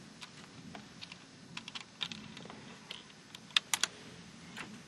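Scattered light clicks and taps at irregular intervals, with a quick cluster of three sharper clicks about three and a half seconds in.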